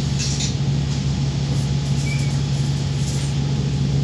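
Diesel engine of a Wright Streetlite Max micro-hybrid single-deck bus idling steadily while the bus stands still, heard from inside the passenger saloon as a constant low hum.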